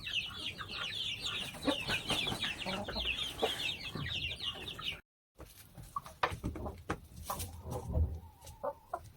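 Chickens: a crowd of chicks peeping rapidly and continuously for the first half. After a brief cut, sparser clucking and clicking taps follow.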